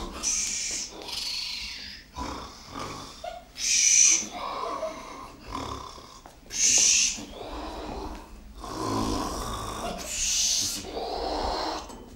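A person's voice making repeated breathy vocal sounds, alternating hissing exhalations with low, rasping voiced ones. The loudest hisses come about four times, every two to three seconds.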